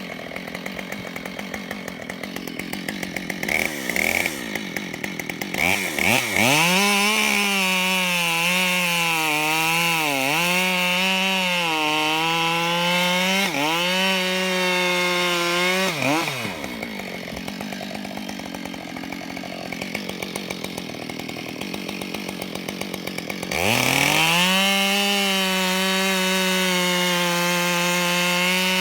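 Husqvarna 572XP two-stroke chainsaw idling with a couple of short throttle blips, then revving to full throttle and cutting through ash logs, its pitch dipping again and again under load. It drops back to idle for several seconds, then revs up into a second cut near the end.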